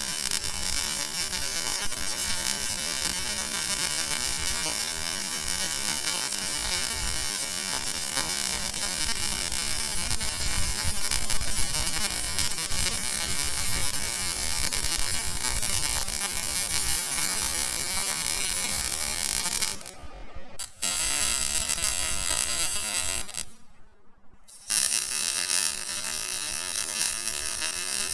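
MIG welding arc buzzing and crackling steadily, with two short breaks near the end where the arc stops.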